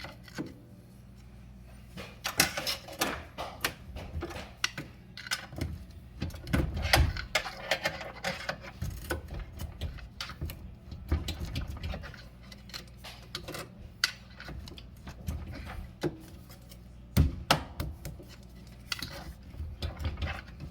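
Irregular knocks, clatters and scrapes as a built-in dishwasher is worked and lifted by hand to free it from under the counter, with a few sharp louder bangs among them.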